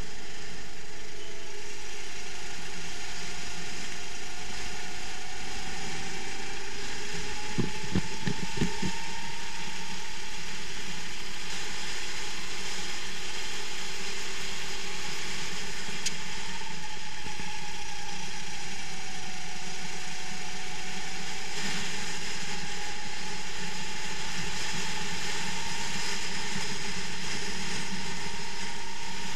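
Kart engine heard onboard at racing speed, a steady rattly drone whose pitch rises and falls with speed around the lap. A short run of knocks comes about eight seconds in.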